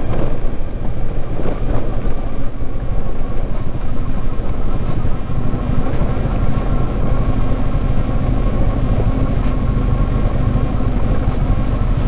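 Kawasaki Versys 650's parallel-twin engine running steadily while the motorcycle is ridden along a dirt road.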